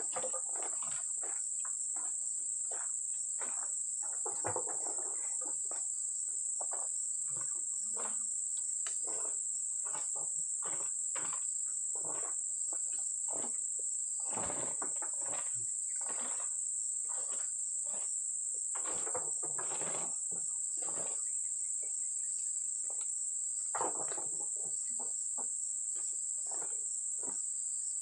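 Steady high-pitched insect chorus, with irregular thuds of oil palm fruit bunches being thrown up onto a truck's load.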